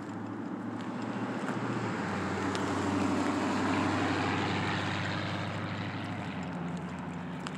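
A passing vehicle's engine, growing louder to a peak about three to four seconds in and then fading away.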